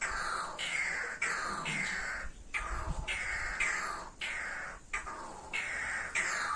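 Birds giving a steady run of harsh, scratchy calls. Each call slides down in pitch, and they come about two a second, overlapping.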